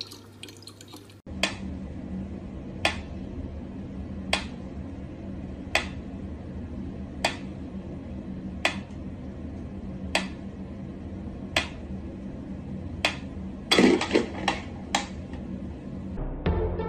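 Mechanical pendulum metronome ticking slowly and evenly, about one sharp tick every second and a half. Near the end comes a brief flurry of closer clicks and a short pitched sound.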